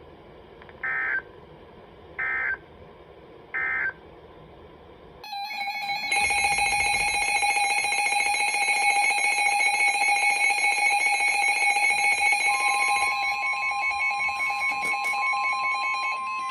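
Emergency Alert System tones from NOAA Weather Radio: three short bursts of end-of-message data tones, then, about five seconds in, a loud steady attention signal, with a second, higher steady tone joining near the end. It heralds the next severe thunderstorm warning.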